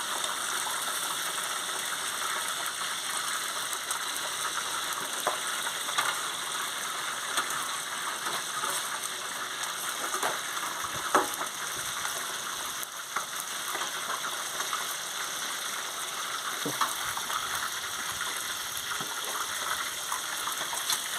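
Fish frying in hot oil: a steady sizzle with a few scattered pops and clicks.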